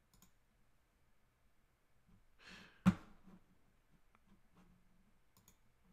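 Quiet room tone with a soft breath about two and a half seconds in, followed at once by a single sharp computer mouse click, with a few faint clicks elsewhere.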